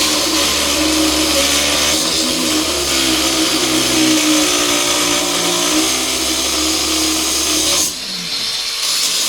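DeWalt 4.5-inch FLEXVOLT Advantage cordless angle grinder cutting through 3/4-inch steel plate with a cut-off wheel, the motor running hard under load with a high grinding hiss. The grinding drops off briefly near the end, then picks up again.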